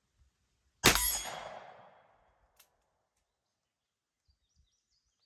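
A single .45 ACP revolver shot about a second in, its report echoing across open ground and dying away over about a second. A faint short tick follows about a second and a half later.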